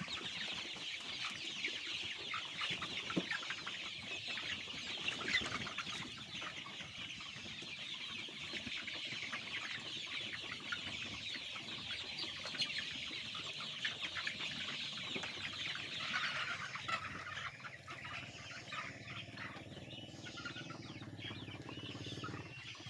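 A large flock of 45-day-old white cockerels peeping and clucking all at once, a dense, continuous high-pitched chatter. The chatter thins out after about 16 s, and a low hum comes in near the end.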